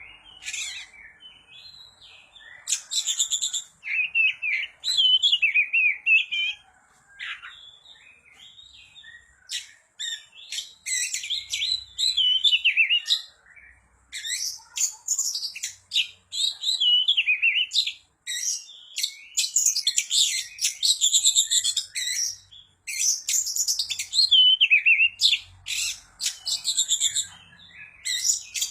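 Oriental magpie-robin (kacer) singing vigorously: a varied song of gliding whistles mixed with harsh, scratchy notes, delivered in bursts of a second or two with short pauses between them.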